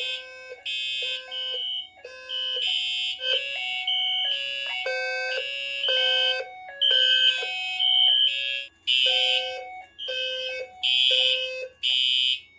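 Fire alarm system in alarm after a smoke detector activation: several notification appliances (Wheelock and Simplex horns and the detectors' sounder bases) sound at once. A low buzzing tone and high shrill horn tones pulse on and off in overlapping, out-of-step patterns.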